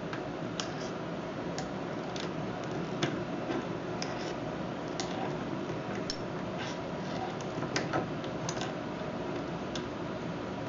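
Scattered light metallic clicks and ticks as long-nose pliers work the actuator into position inside a Weiser knob lock, over a steady background hiss.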